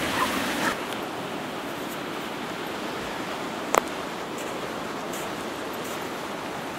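Steady rush of ocean surf breaking on the beach, with one short sharp click a little under four seconds in.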